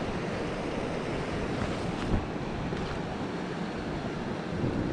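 River water rushing over a shallow stony riffle, a steady wash, with one brief knock about two seconds in.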